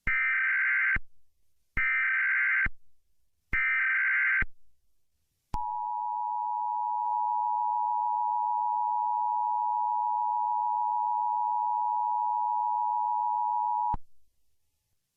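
Emergency Alert System tones: three one-second bursts of SAME header data tones, then the steady two-tone attention signal held for about eight seconds before it cuts off. The sequence announces an emergency alert broadcast.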